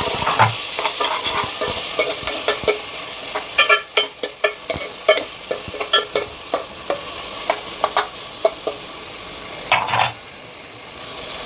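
Chopped onions and green chillies sizzling in hot oil in a non-stick kadai, stirred with a perforated steel spatula that scrapes and taps against the pan a few times a second. There is a louder clatter near the end, after which only a softer, steady sizzle remains.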